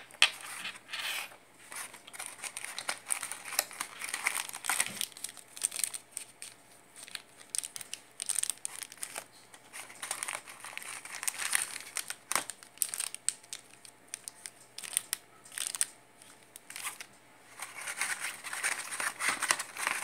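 Clear plastic packaging bags around a pair of in-ear earphones being handled, crinkling and crackling in irregular bursts. A sharp snap comes right at the start.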